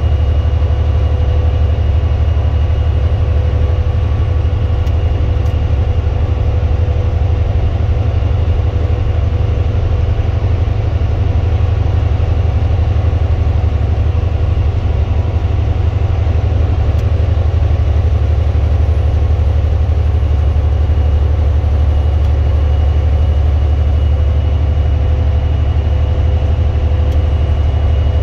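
Heavy truck's diesel engine and road noise inside the cab while cruising at highway speed: a steady deep drone with a faint steady whine above it.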